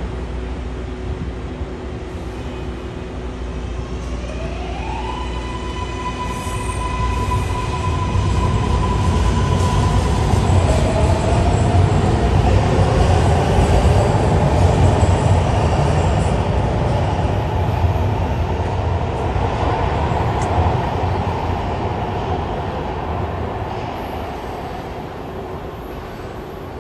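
MARTA subway train pulling out of an underground station: its electric motors give a whine that rises in pitch about four seconds in and then holds steady, while the rumble of the cars on the rails builds to its loudest in the middle and fades away as the train leaves.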